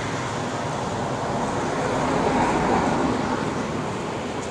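Steady road traffic noise that swells about two seconds in and then eases off.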